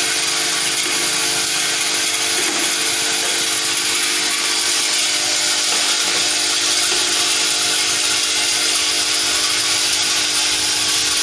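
Vibratory bowl feeder running, feeding steel bike-chain pins: a steady electromagnetic hum under a dense, even rattle of the small metal pins chattering along the bowl's spiral track.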